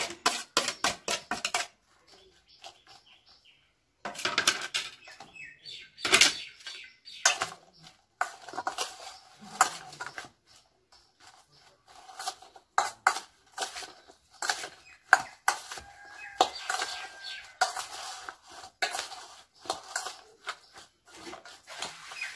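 Chopped berries being mixed into a green chili and coriander mixture in a metal pot: repeated clinks and scrapes of metal, with a short pause about two seconds in.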